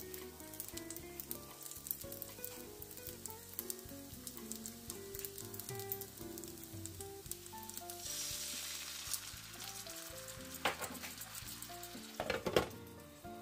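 Chive dumplings frying in oil in a nonstick pan, crackling and sizzling. About eight seconds in, water poured around the hot pan sets off a loud hiss for a second or so. Near the end come a few sharp knocks as a glass lid is set on the pan.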